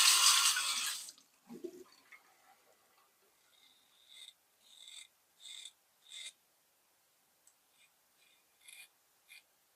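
Water running from a tap, cut off about a second in, followed by a dull knock and then four short soft swishes about two-thirds of a second apart, with a few faint clicks near the end.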